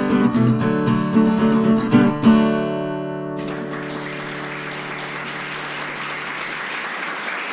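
An acoustic guitar jingle strums to a final chord that rings out and fades about three seconds in. It is then replaced by the steady, even patter of audience applause.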